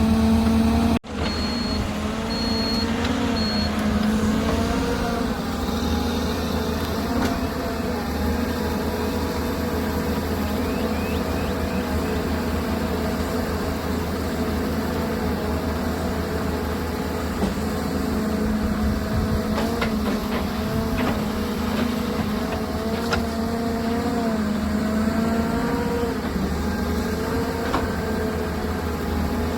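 Heavy diesel earthmoving machinery, a mining excavator, running steadily at work, its engine note rising and falling slightly with load. Three short high beeps sound just after an abrupt break about a second in.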